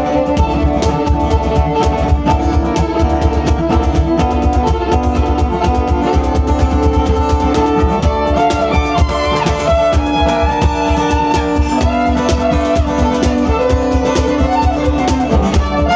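Country band playing live: an instrumental passage with fiddle and guitar over a steady quick drum beat.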